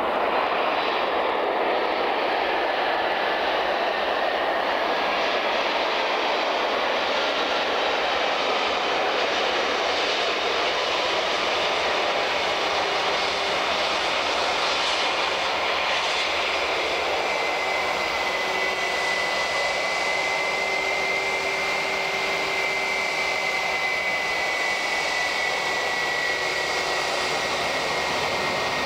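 Airbus A319 airliner's jet engines running, a steady loud noise, with a high whine that comes in about halfway through and drifts slightly lower.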